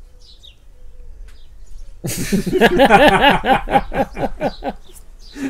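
A man's hearty laughter: after a quiet couple of seconds, a burst of rapid, rhythmic 'ha-ha' pulses lasting about three seconds, then trailing off.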